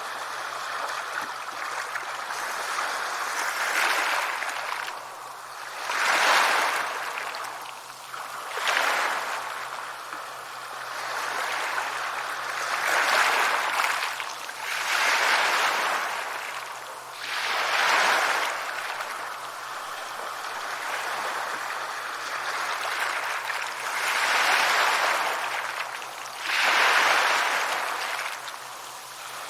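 Sea waves breaking on a shore: a steady hiss of surf that swells into a louder rush every two to four seconds, then washes back down.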